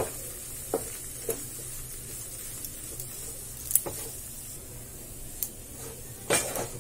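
Flour roasting in hot ghee in a non-stick kadai: a faint, steady sizzle, with a wooden spatula scraping and tapping against the pan at irregular moments as it stirs, several strokes coming close together near the end.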